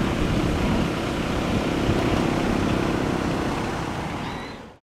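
Steady rotor and turbine noise of a UH-60M Black Hawk helicopter, with a fast low flutter. It fades and cuts off just before the end.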